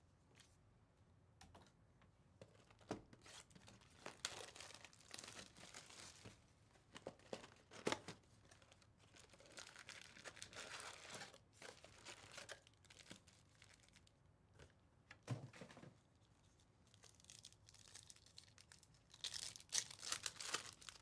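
Faint rustling and crinkling as a cardboard box of baseball card packs is opened by hand, then a foil card-pack wrapper torn open near the end, the loudest sound.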